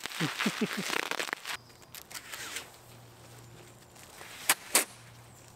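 Bubble wrap twisted in the hands, its bubbles popping in a rapid crackle for about the first second and a half. After a pause, two sharp clicks close together near the end are the loudest sounds.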